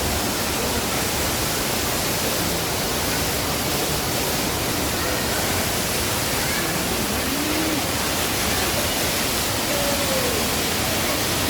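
Steady rushing noise like falling water, even and unbroken, with faint voices in the background.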